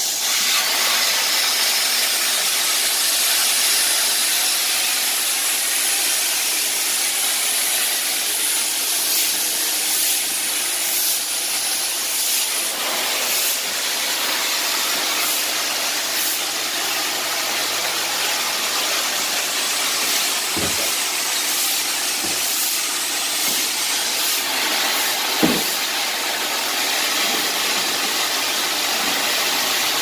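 Carpet-cleaning extractor's vacuum running, a steady high hiss of air and water being pulled through a water claw and its long hose. Two short knocks sound in the latter part.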